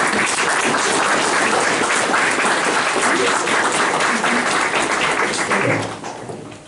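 Audience applauding: many people clapping together, a dense patter that dies away about six seconds in.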